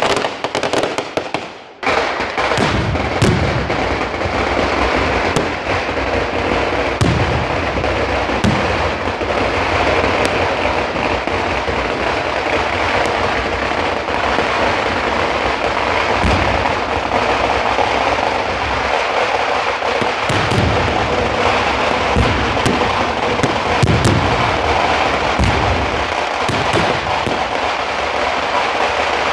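Large fireworks display: a dense, continuous crackle of many bursting shells and firecrackers, with deep booms every few seconds.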